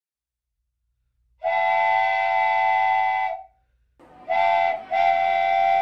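Train horn sounding three blasts: a long one about a second and a half in, then a short blast and another long one. Each blast is a chord of several tones, the first two sagging in pitch as they cut off. Faint background noise comes in just before the last two blasts.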